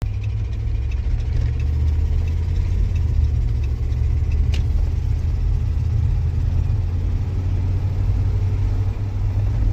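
Steady low rumble of a vehicle being driven, heard from inside the cabin: engine and road noise, with a single sharp click about four and a half seconds in.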